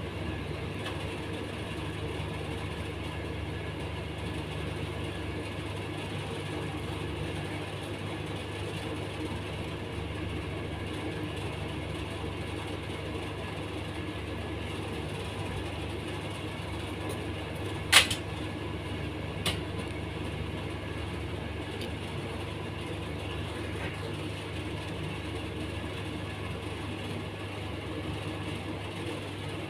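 Steady low background hum, with a sharp click about eighteen seconds in and a fainter click a second and a half later.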